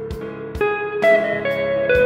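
Background music led by guitar, its held notes changing about every half second.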